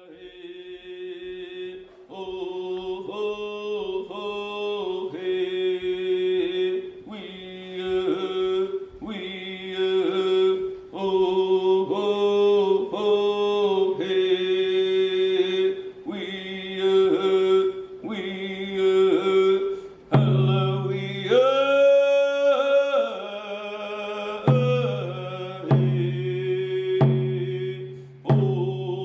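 Chant-like singing over a steady held drone note, the sung phrases rising and falling. About two-thirds of the way through, a deep low tone joins, pulsing roughly once a second.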